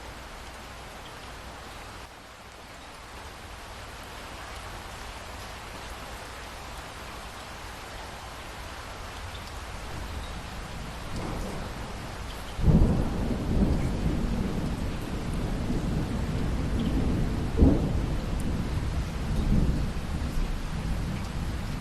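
Steady rain falling and slowly growing louder. About halfway through, a sudden loud thunderclap breaks in and rolls on as a low rumble, with several more loud peaks before it fades back toward the rain.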